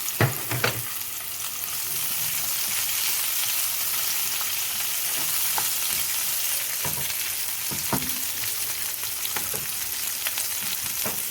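Diced red and yellow bell peppers sizzling as they fry in oil in a pan. A utensil stirring them knocks against the pan twice just after the start, with a few lighter clicks later.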